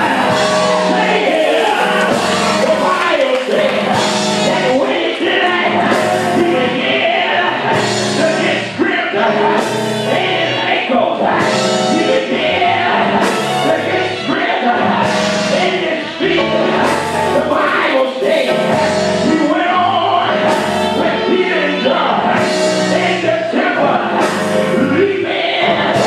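Gospel music: group singing over a steady beat.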